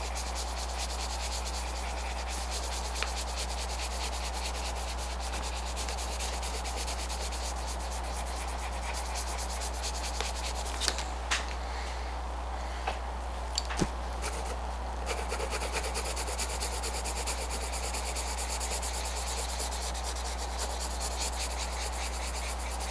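Coloured pencil scratching on paper in quick, rapid shading strokes, stopping for a few seconds around the middle, with a few light taps. A steady low hum runs underneath.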